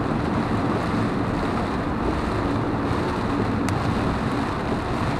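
Steady road noise inside a car driving through heavy rain on a wet highway: tyres running through water on the road, with one faint tick a little over halfway through.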